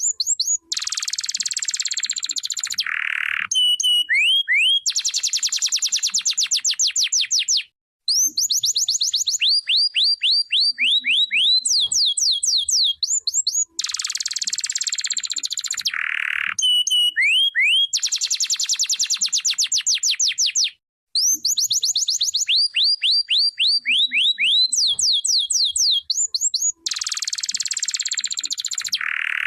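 Domestic canary singing continuously in long phrases of rising whistled notes and fast buzzy trills. The same run of song repeats about every 13 seconds, with brief pauses between runs.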